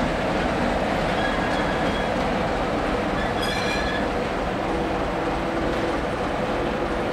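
ČSD T 458.1 diesel shunting locomotive's engine running steadily as it moves slowly with its coaches. Brief high wheel squeals come about a second in and again at about three and a half seconds.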